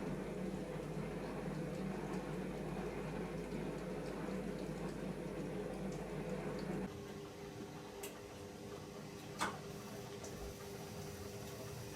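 Bosch SKS60E02GB compact dishwasher running, its wash pump spraying water around the inside with a steady sloshing rush. About seven seconds in the spraying stops abruptly, leaving a quieter hum, then a single sharp click.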